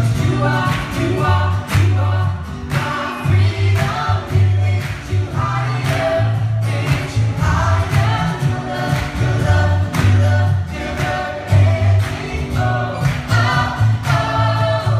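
Live band playing an upbeat contemporary worship song, with several voices singing over bass and a steady drum beat.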